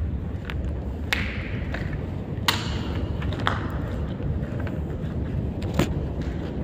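Steady low rumble of wind and handling noise on a handheld phone microphone, with a handful of sharp clicks and knocks, the loudest about two and a half seconds in.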